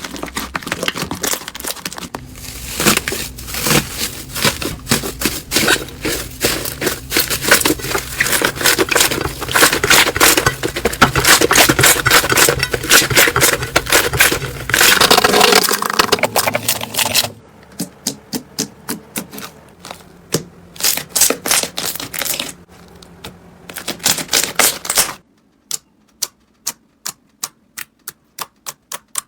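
Slime being squeezed and pressed by hand, a dense run of crackling clicks and pops. About 17 seconds in it changes to separate sharp pops, a few a second, and near the end to single clicks over a much quieter background.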